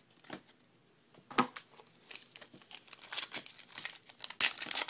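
A trading card pack wrapper crinkling and tearing open, starting after a quiet second and a half and loudest near the end.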